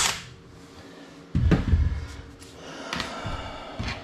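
A power drill stops at the very start, then a loud thump about a second and a half in and a few lighter knocks: tools and screws being handled while a screw is swapped for a longer one.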